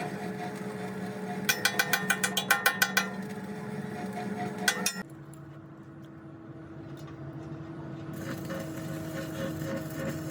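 Quick series of about ten ringing hammer blows on metal, roughly six a second, over a steady machine hum, with two more blows a little later. About halfway through, the sound cuts to a different, quieter steady machine hum.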